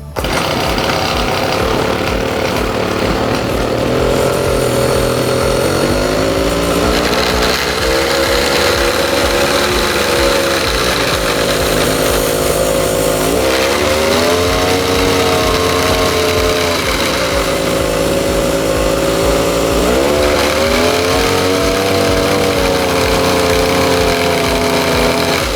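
A 17-year-old brush cutter's small engine running. It is revved up and eased back several times.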